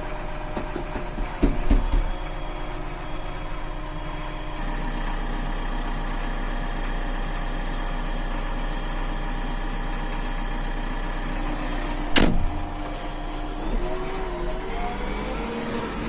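JCB 3DX backhoe loader's diesel engine running steadily, heard from inside the cab, its note shifting about four seconds in. A couple of loud knocks come about a second and a half in, and a single sharp clunk about twelve seconds in.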